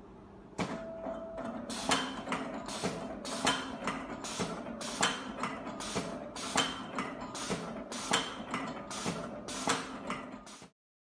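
JC-C38 automatic pipe and hose cutting machine running, its rollers feeding black tubing and its blade cutting it into short lengths in a steady rhythm of about two to three sharp strokes a second over a faint hum. The sound cuts off abruptly near the end.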